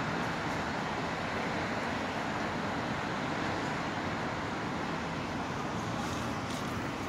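Steady road traffic noise: an even rush with no distinct events.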